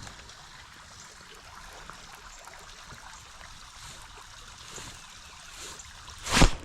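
Soft, steady trickling and lapping of water, broken by a single loud thump near the end.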